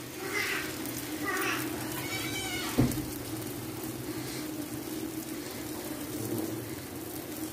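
Thin batter sizzling on a hot iron tawa as it is spread by hand, with a short high cry just after two seconds in and a single soft knock a moment later.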